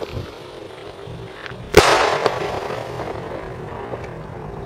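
Consumer firework artillery shell bursting in the air about two seconds in: one sharp bang, followed by a few seconds of fading crackle with scattered small pops.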